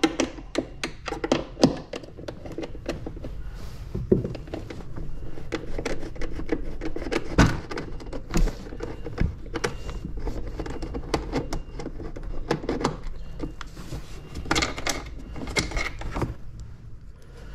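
Hand-tool and fastener clicks and knocks as bolts are undone and lifted out of a jet ski's plastic body panels: a steady run of small sharp clicks, a single louder thunk about halfway through, and a short rattle of plastic parts near the end.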